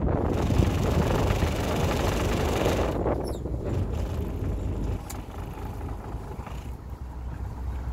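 A boat's engine idling with a steady low hum, under wind buffeting the microphone that is strong for the first three seconds and then eases.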